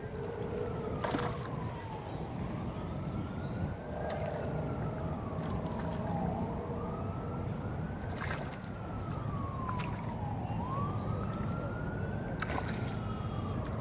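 Emergency vehicle siren wailing, its pitch rising and falling slowly about every four seconds, over a steady low rumble, with three sharp clicks.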